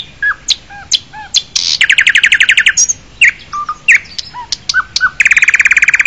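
Birds chirping: short sliding whistled calls, broken by two fast trills, one about two seconds in and one near the end.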